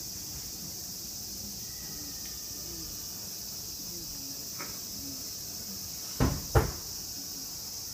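Two heavy thumps about half a second apart, near the end, from bodies hitting the wooden stage floor in a jujutsu throw and breakfall, with a lighter knock a little before. Insects keep up a steady high drone throughout.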